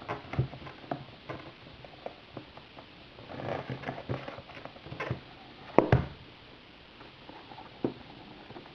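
Handling noises from an iPad 2 in a synthetic-leather folio case being moved and set up: scattered light taps and clicks, a stretch of rustling about three and a half seconds in, and a louder knock about six seconds in.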